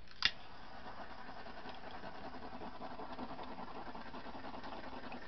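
A click, then a small handheld electric blower runs with a steady whir.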